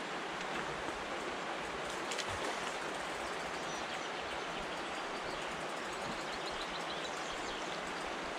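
River water flowing over a rocky bank, a steady rushing noise with no distinct events.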